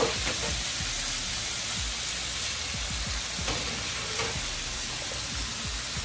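Food frying in a hot pan, a steady sizzle, with a few faint low knocks from stirring or handling the pan.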